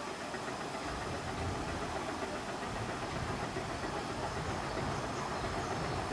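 Replica Besshi No.1 mining-railway train running onto a steel truss bridge, its engine and running gear making a low mechanical noise that comes in about a second in and slowly grows louder as it approaches.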